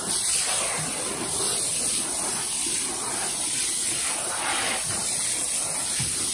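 A garden hose spray nozzle jets water onto the floor of an emptied plastic kiddie pool, rinsing silt toward the drain: a steady spray hiss.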